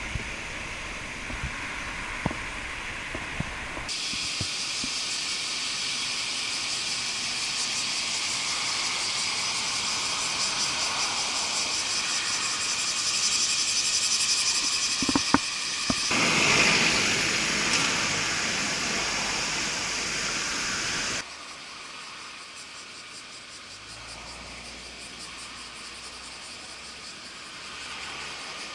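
Cicadas buzzing in a dense, steady chorus, high-pitched and hissy. It sets in suddenly a few seconds in, swells briefly past the middle, and cuts down sharply later to a quieter hiss.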